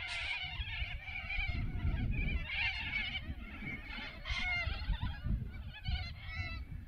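A flock of cockatoos calling over one another, many wavering, overlapping calls, with a low rumble underneath.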